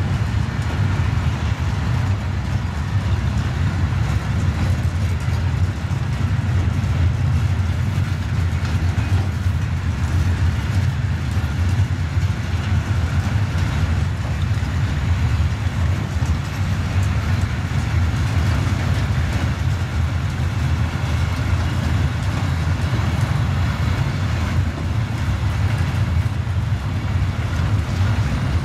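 Freight train of silo tank wagons rolling slowly past, a steady low rumble with no distinct wheel clicks.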